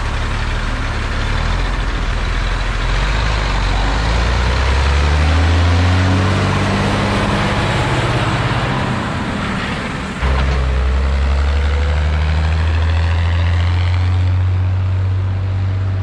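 Ursus 1201 tractor's six-cylinder diesel engine running hard as the tractor pulls away under load. Its pitch climbs over a few seconds, and about ten seconds in the note turns abruptly louder and deeper, then holds steady.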